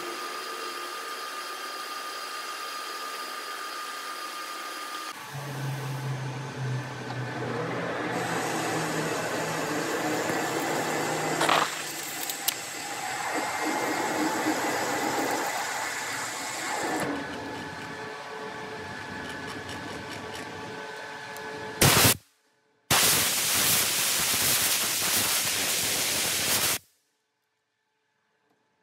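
Metal lathe running with a C45 steel workpiece turning in the chuck: a steady machine hum with wavering whines in the middle. The sound breaks off abruptly a few times and cuts to silence near the end.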